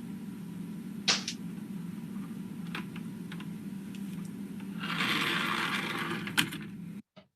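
Soundtrack of a slipper slip-resistance test on a tilting ramp: a steady low hum with sharp clicks and knocks now and then, and a hiss of about a second and a half near the end that finishes in a sharp knock. The sound then cuts off abruptly.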